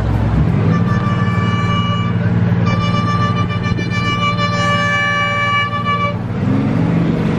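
Passenger ferry's engine running steadily, picking up briefly just after the start. A boat horn sounds over it in one long blast of about five seconds, starting about a second in; a second tone joins partway through.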